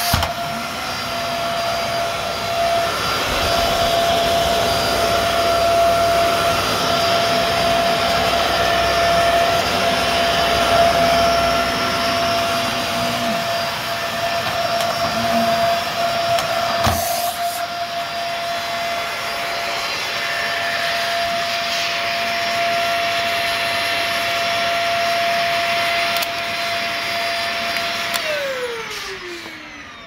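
Dyson DC50 compact upright vacuum cleaner running over carpet, a steady motor whine with rushing airflow and a sharp click about halfway through. Near the end it is switched off and the motor spins down, its whine falling in pitch as it fades.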